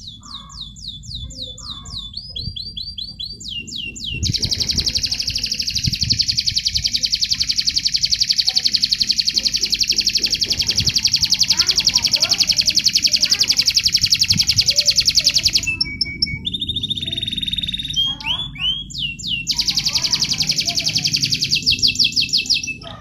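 Domestic canary singing a competition-style song of rapid high trills. One long unbroken roll runs from about four seconds in to about two-thirds through. Then come a few short separate notes and a second roll near the end.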